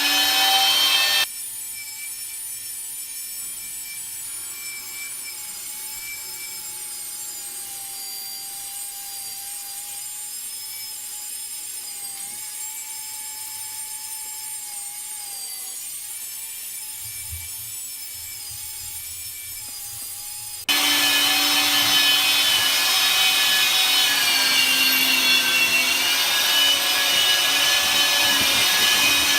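Wet vacuum motor running with a steady whine while sucking up standing water from a flooded kitchen floor. It drops abruptly much quieter about a second in and comes back loud near the end.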